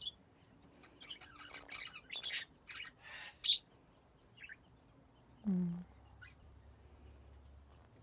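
A Quaker parrot (monk parakeet) held close gives a handful of short, high, soft chirps and squeaks. A short low hum follows a little past halfway.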